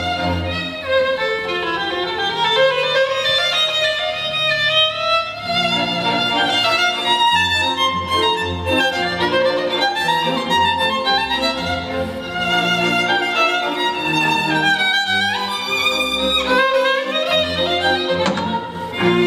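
Music with a violin-like melody gliding over a low bass line, played back through a portable Bluetooth speaker under test.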